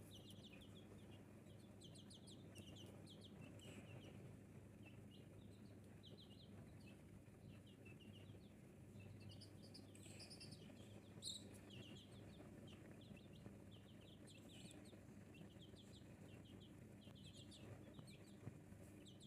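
A brood of Rhode Island Red chicks peeping, many short high peeps overlapping without a break, faint over a steady low hum.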